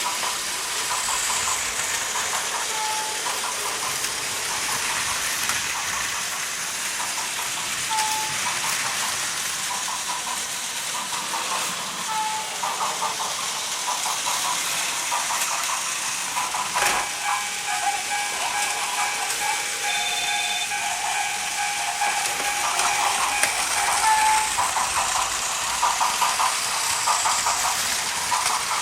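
Plarail battery-powered toy trains running on plastic track: a steady whirring, clattering hiss of small motors and wheels. A few short beeps come through, and past the middle, after a click, a toy sound effect with several steady tones plays for several seconds.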